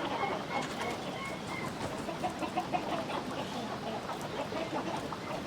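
A flock of chickens clucking steadily, with a quick run of short, high chirps in the first second or so.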